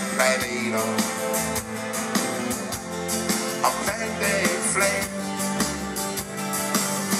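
A live rock band playing a song through a PA, with acoustic and electric guitars, upright bass, drum kit and keyboard, and a man singing over a steady beat. It is heard from within the audience.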